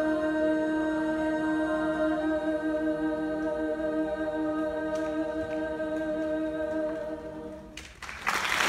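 Large mixed choir holding one long sustained chord, which ends about eight seconds in; applause breaks out right after, marking the end of the piece.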